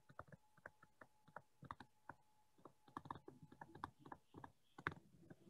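Near silence with faint, irregular small clicks and taps coming several times a second, over a faint steady tone.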